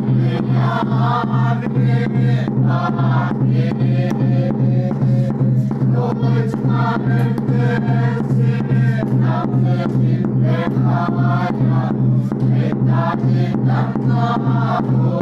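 A small congregation singing a hymn together, with a steady drum beat about three times a second.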